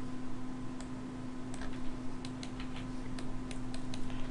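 Scattered clicks from a computer mouse and keyboard, a dozen or so at irregular intervals, over a steady low hum.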